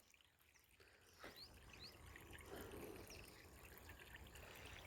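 Near silence, with a faint trickle of water running from a flexible hose pipe and a few faint, short high chirps.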